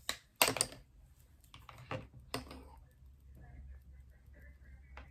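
Small plastic makeup products being handled, giving a few sharp clicks and taps. The loudest come about half a second in and again around two seconds, over a faint low hum.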